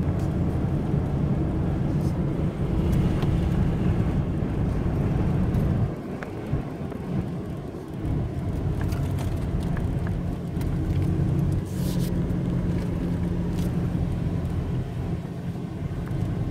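Vehicle engine and road noise heard from inside the cabin while driving, a steady low hum. The hum drops away for about two seconds, roughly six seconds in, then comes back.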